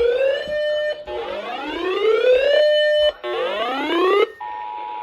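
An electronic alarm siren whoops upward three times, each sweep rising and briefly holding its top note. About four and a half seconds in, it gives way to the steady two-tone Emergency Alert System attention signal, the 853 and 960 Hz pair that comes before a broadcast warning.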